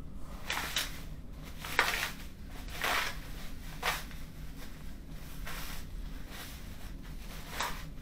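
Thin plastic bag rustling and crinkling as it is handled, in about half a dozen short bursts.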